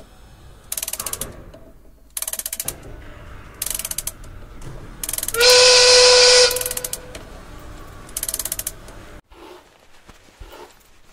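Machinery sound effects: bursts of rapid ratcheting gear clatter about every second and a half. A loud steam whistle with hiss blows for about a second midway and is the loudest sound. Near the end the clatter gives way to faint soft taps.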